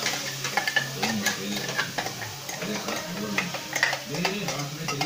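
A metal spoon scraping and clicking against a steel mixer jar as thick papaya puree is emptied into a hot pan of ghee, with a light sizzle underneath.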